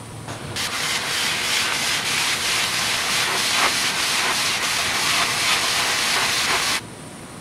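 TIG welding arc on 16-gauge cold-rolled sheet steel: a loud, steady hiss with a fine crackle that builds over the first second and cuts off abruptly near the end.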